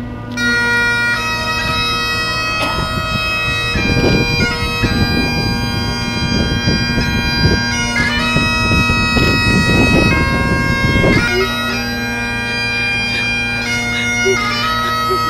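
Bagpipes playing a melody over their steady drones, with a low rumbling through the middle stretch.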